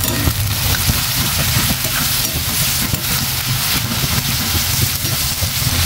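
Sliced onions and green chillies frying in oil in a stainless steel pan, sizzling steadily, with a perforated metal spatula scraping and tossing them in small irregular clicks.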